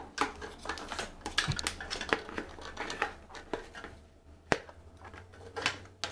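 Hard plastic parts of a floating turtle basking platform clicking and knocking together as they are handled and its pylon legs are fitted into the base, with one sharp click about four and a half seconds in.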